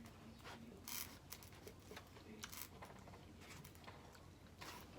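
Faint eating sounds from a seafood boil mukbang: a few small clicks and smacks of chewing and handling food, about a second in, midway and near the end.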